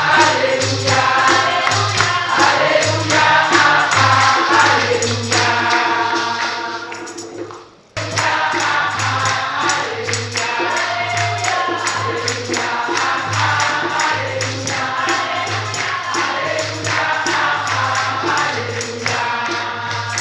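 Congregation singing a lively gospel praise song with tambourines jingling on the beat, hand-drum pulses and clapping. The music fades out about seven seconds in, then cuts straight back in mid-song a second later.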